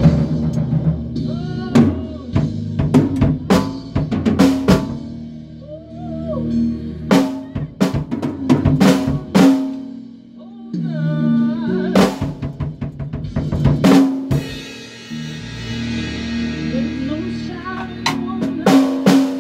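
A rock band playing in rehearsal: a drum kit with snare and bass-drum hits drives the music over sustained bass notes, with pitched lines bending above. A long cymbal wash rings through the second half.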